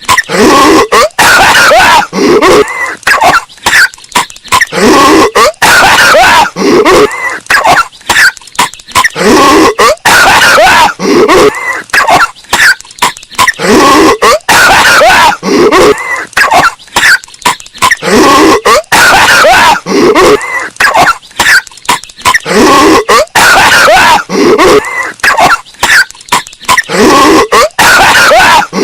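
Cartoon character Patrick Star coughing over and over, looped and bass-boosted so loud that it is harshly distorted and clipped.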